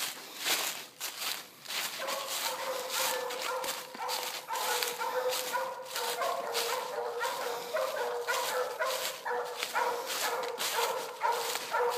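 Hunting hounds barking treed: a fast, steady string of barks that starts about two seconds in, the hounds' signal that they have their quarry up a tree. Scuffing noises come before and among the barks.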